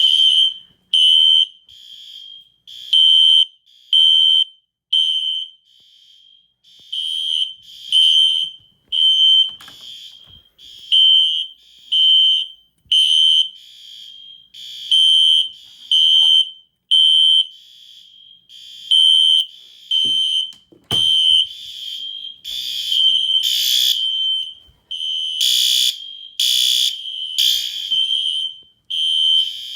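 Fire alarm horn strobes sounding, with a system test in alarm after a manual pull station was pulled: a loud, high-pitched beep repeating about once a second, growing louder and harsher in the last third. There is a brief thump about two-thirds of the way through.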